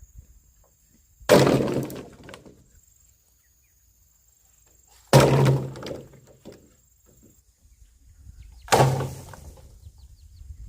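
Bamboo being chopped with a blade: three hard strikes, each about four seconds after the last, and each followed by a short rattling tail as the stalk shakes.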